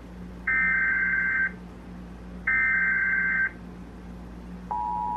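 Emergency Alert System SAME header: two one-second bursts of shrill digital data tones, about a second apart. Near the end the steady two-tone attention signal begins, announcing a severe thunderstorm warning.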